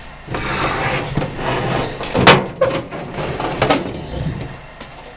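Sylvania microwave oven's sheet-metal outer cover being slid back and pulled off its chassis: scraping and rattling metal, with a few knocks, the loudest a little over two seconds in.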